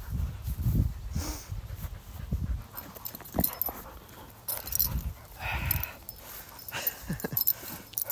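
Black Labrador retriever making small dog sounds, with a short high whine about halfway through. Low thuds and rumble fill the first couple of seconds.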